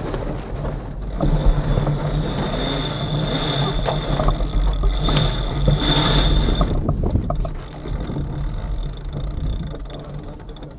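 Sailboat under way: water rushing along the hull, with wind buffeting the microphone. It grows louder about a second in and falls back after about seven seconds.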